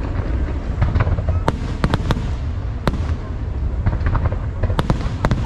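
Fireworks display: a continuous low rumble of bursts with many sharp cracks scattered through it.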